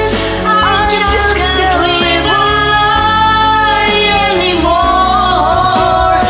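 A man and a woman singing a duet over a karaoke backing track, with long held and sliding notes.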